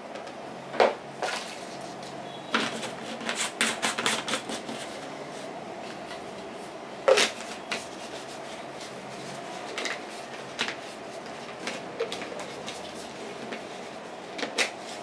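Scattered clicks and knocks of a plastic protein shaker bottle being handled as a shake is mixed and its lid fitted and closed. There is a quick run of clicks between about two and a half and four and a half seconds in, and a single loud knock about seven seconds in.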